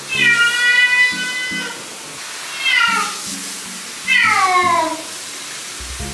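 Flame point Siamese cat meowing loudly three times at bath time in the shower: one long drawn-out meow, then two shorter meows that fall in pitch. Soft background music plays underneath.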